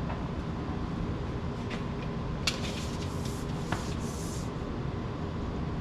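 Light handling noises: a few sharp clicks, the loudest about two and a half seconds in, and brief rubbing hiss around the middle, over a steady low background rumble.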